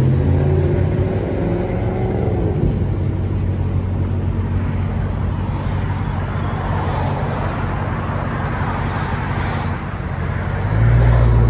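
Dodge Charger Hellcat's supercharged 6.2-litre Hemi V8 running at low revs. The engine note glides in pitch in the first couple of seconds and swells louder and deeper about a second before the end.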